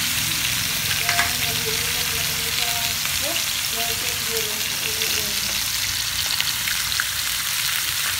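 Chicken pieces frying in oil in a pan: a steady sizzle with a few scattered crackles.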